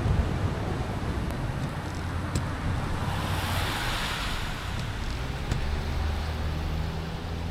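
Car driving on a wet road in the rain: a steady low road rumble and tyre hiss, with a louder hiss swelling for a couple of seconds around the middle.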